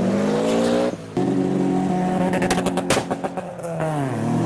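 Cars driving past under power. A Chevrolet Camaro's engine rises in pitch as it accelerates away. Then a small hatchback's engine runs steadily with a quick run of sharp pops in the middle, and its pitch falls near the end as it goes by.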